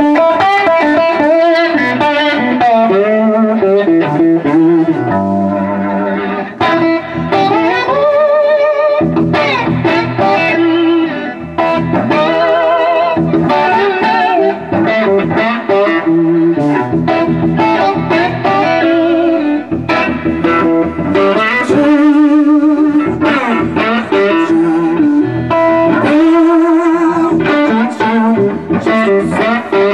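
Electric guitar, a Gibson SG, played solo in a blues-rock vein: a continuous run of notes and chords, with many notes gliding and wavering in pitch.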